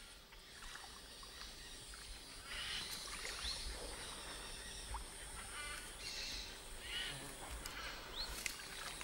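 Faint forest riverside ambience: scattered short bird chirps and calls over a steady, thin, high-pitched drone.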